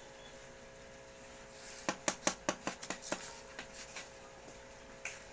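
A dog eating from a bowl: after a quiet start, a quick run of about eight sharp chewing clicks and clinks begins a little under two seconds in, followed by a few scattered ones.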